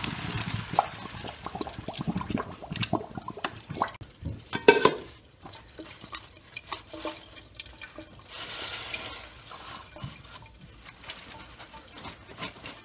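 Kitchen utensils clinking, knocking and scraping against pots and bowls during cooking, with a louder cluster of knocks about five seconds in.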